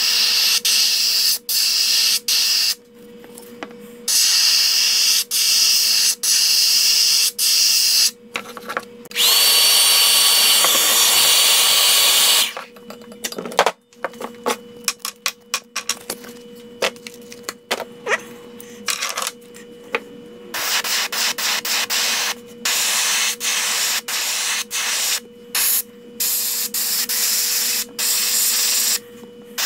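Airbrush spraying paint in many short hissing bursts, with one longer burst of about three seconds near ten seconds in that carries a thin whistle. A steady hum runs underneath.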